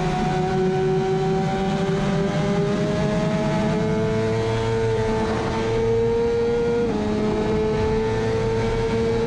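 Kawasaki ZX-6R racing motorcycle's 600 cc inline-four engine at high revs under hard acceleration, heard from onboard, its pitch climbing slowly with a small step down about seven seconds in. Wind rush sits beneath the engine.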